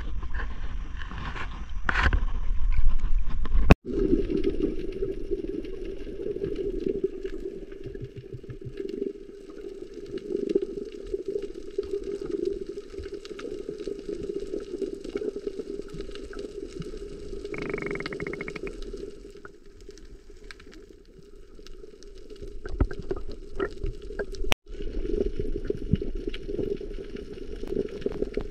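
Muffled underwater sound from a camera in the sea: a steady low rush of water with scattered clicks and bubbling, and a short pulsing burst of bubbles about eighteen seconds in. The first few seconds, above water on the boat, are a louder low rumble before it cuts underwater.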